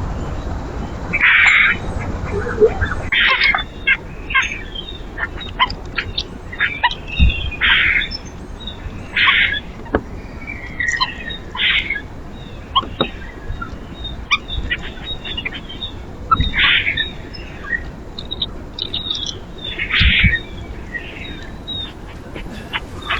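Backyard birds calling at a feeder: a series of short, harsh calls every second or two, mixed with quick, high chirps.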